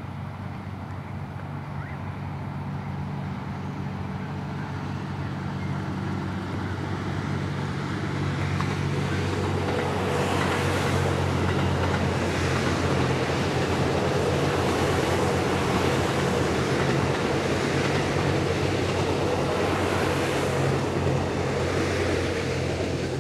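JR West 87 series Twilight Express Mizukaze sleeper train passing: a steady low hum from its diesel generator engines mixed with wheel-on-rail noise. It grows louder over the first several seconds and stays strongest through the second half.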